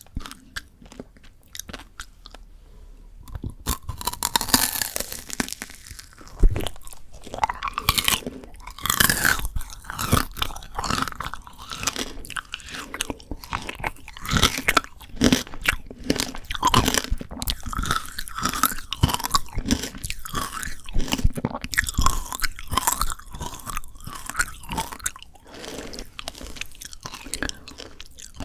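Close-miked biting and chewing of frozen Shine Muscat grape tanghulu: the hard candy shell and the icy grapes crunch between the teeth. There are only a few small clicks at first, then dense crunching from about four seconds in.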